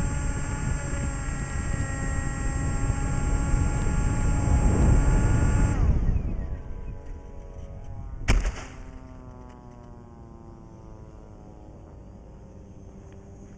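Electric motor and pusher propeller of a small foam FPV plane, heard through its onboard camera, whining at a steady high pitch, then throttled back with a falling whine about six seconds in. A sharp thump about eight seconds in as the plane touches down on grass, then a fainter whine that slowly falls in pitch.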